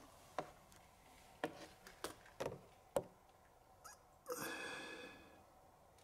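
Sharp clicks and knocks from hands and a tool working on the plastic joystick housing and wiring harness connector of a snowblower control panel, about five over the first three seconds. About four seconds in comes a steady whine lasting about a second.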